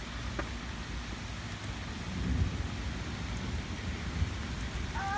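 Rain falling steadily, an even hiss, with a low rumble that swells about two seconds in.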